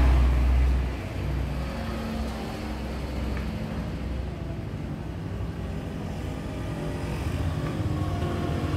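Low engine rumble of a motor vehicle running nearby. It is loudest in the first second, then settles into a steadier, quieter hum.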